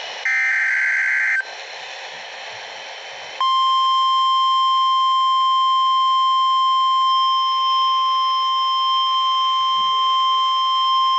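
NOAA Weather Radio alert: a short burst of warbling digital SAME header tones lasting about a second, a couple of seconds of radio hiss, then the steady 1050 Hz warning alarm tone that starts about three and a half seconds in and holds.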